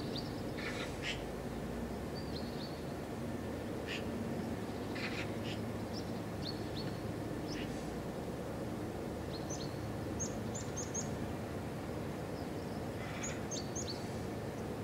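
Small birds chirping: short, high, scattered calls, with a quick run of them about ten seconds in and another near the end, over a steady low outdoor background hum.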